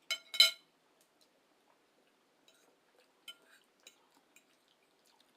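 Metal cutlery clinking against a dish twice in quick succession near the start, each strike ringing briefly, then a few faint clicks and taps.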